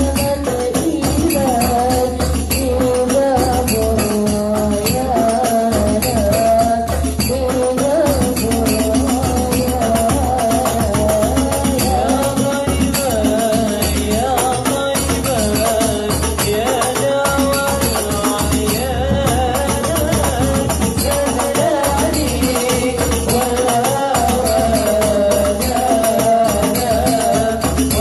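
Hadroh ensemble performing an Islamic sholawat: male voices sing the melody into microphones over a steady rhythm of rebana frame drums and a larger drum.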